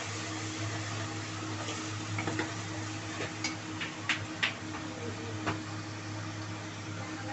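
Ginger-garlic paste and turmeric frying in oil in an aluminium pressure cooker, a steady sizzle. A steel ladle stirring the paste clinks against the pot several times around the middle, twice more sharply near the midpoint.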